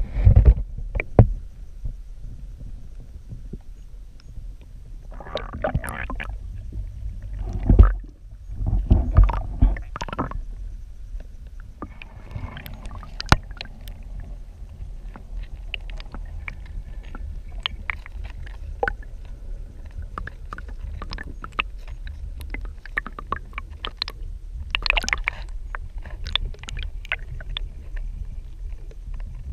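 Creek water heard underwater through a GoPro Hero 4 Black's waterproof housing: a steady muffled low rumble, with loud thumps in the first ten seconds and many small clicks and ticks later on.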